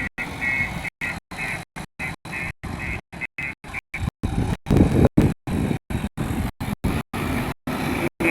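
JCB backhoe loader's diesel engine running, the sound chopped by short dropouts several times a second and swelling louder about five seconds in.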